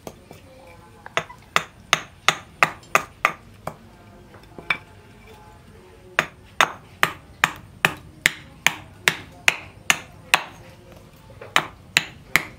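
Hammer blows on the back of a blade wedged into a wooden handle blank, splitting the wood: a run of sharp, quick strikes about two to three a second, with short breaks near the middle and near the end.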